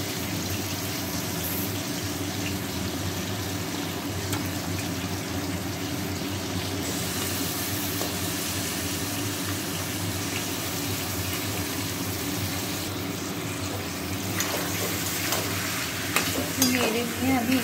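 Raw chicken pieces frying in hot oil in a kadai, a steady sizzle just after they go in. Near the end a spatula starts stirring them, adding sharp scrapes and knocks.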